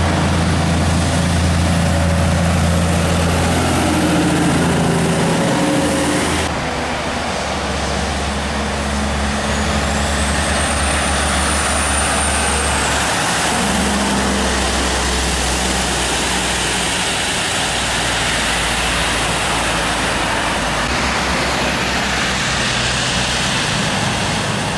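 Heavy prime mover truck's diesel engine running as it hauls an oversize mining dump truck on a low-loader, mixed with road traffic noise. A high whistle rises and falls about ten seconds in.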